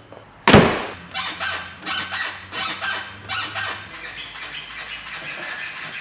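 A loud thump about half a second in, then the Ford Mondeo Mk5's suspension creaking and squeaking over and over as the car body is rocked up and down. The squeak is the sign of a worn rear suspension arm bush on a high-mileage car.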